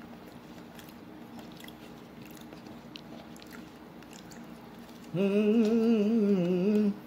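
Quiet chewing and mouth clicks of someone eating a taco, then about five seconds in a loud closed-mouth hum of enjoyment, 'mmm', with a wobbling pitch, lasting about two seconds.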